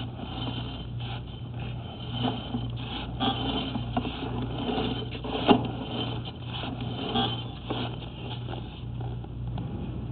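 Sewer inspection camera and its push cable moving through a drain pipe: irregular scrapes and knocks, the sharpest about five and a half seconds in, over a steady low hum.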